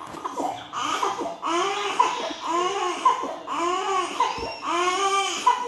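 Young infant crying in a steady rhythm: about five rising-and-falling wails, each under a second, roughly one a second.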